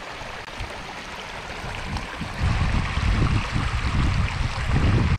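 Water rushing and splashing over rock ledges in a shallow river rapid, a steady rushing hiss. About halfway through, a louder low rumble joins it.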